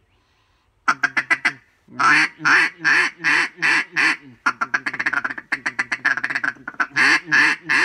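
A Zink duck call blown by mouth. About a second in comes a quick cluster of short notes, then a string of quacks, a fast run of short choppy notes, and more quacks near the end. The call blows smooth and takes little air to work.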